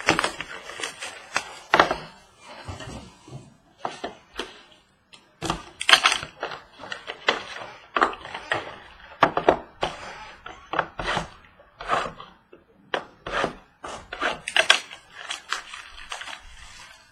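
A sealed box of baseball cards being opened and handled by hand: an irregular run of sharp knocks, scrapes and crinkles of cardboard and packaging.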